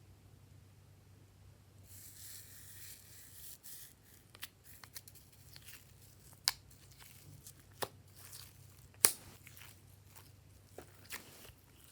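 Glossy slime being worked by hand: a crinkling, tearing hiss about two seconds in, then scattered sharp pops and clicks, the loudest about nine seconds in.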